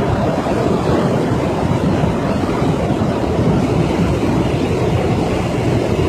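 Swollen river in flood, its muddy water rushing and churning past in a steady, loud noise.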